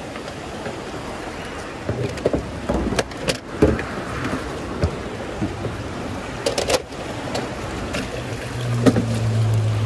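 River water rushing over the stones, with scattered knocks and clicks over it. A low steady hum comes in near the end.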